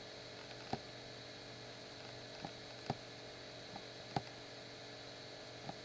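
A handful of short, sharp computer mouse clicks at irregular moments, over a steady low electrical hum with a faint high whine.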